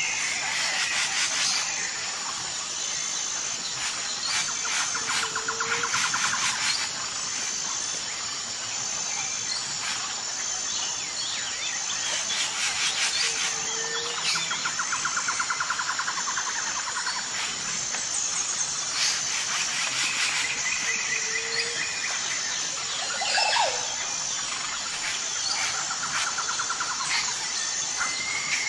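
Jungle ambience: a steady insect chorus with a pulsing high note, and birds chirping and trilling over it. A short low call repeats about every eight seconds.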